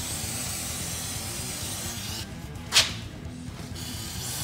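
Aerosol brake cleaner hissing out of a straw nozzle onto a rear brake caliper bracket. It runs as a long spray that stops a couple of seconds in, then a short sharp burst, then a second spray near the end, with background music underneath.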